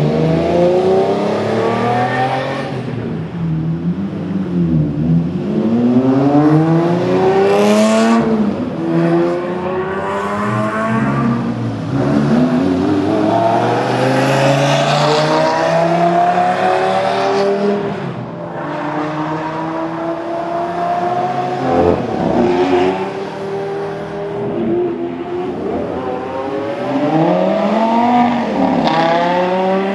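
Lamborghini sports car engines accelerating hard on a racetrack, one run after another. Each engine note climbs steeply in pitch and then drops back several times, as at gear shifts.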